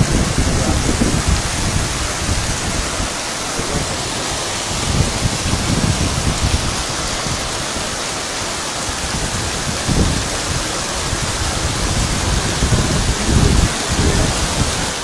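Heavy rain pouring onto a flooded street, a dense, steady hiss, with a few low rumbles rising and falling through it.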